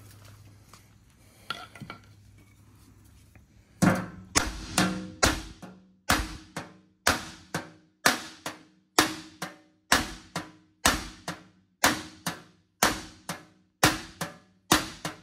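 Ball-peen hammer striking a welded steel GMC truck bumper, starting about four seconds in and keeping a steady pace of about two blows a second. Each blow rings metallically. The bumper is being hammered back into shape.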